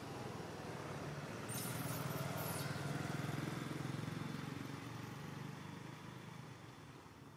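A motor vehicle passing: a low engine hum that swells about a second and a half in and fades away toward the end.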